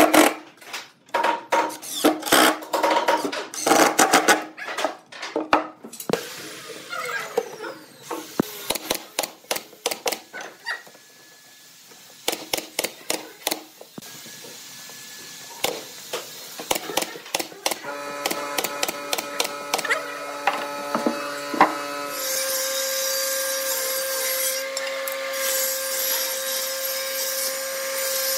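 A cordless impact driver hammering screws into wood in several short rattling bursts, then scattered sharp knocks of hand work on a wooden box. From about two-thirds of the way in, a table saw motor runs with a steady hum and hiss.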